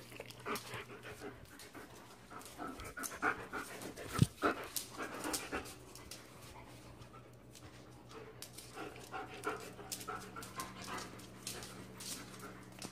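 Dogs panting and scuffling in a play fight, in two bouts of irregular puffs and clicks, with a sharp knock about four seconds in.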